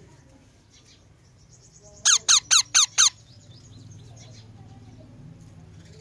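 A parakeet gives five loud, rapid squawks about two seconds in, each falling sharply in pitch, all within about a second. Faint chirping follows.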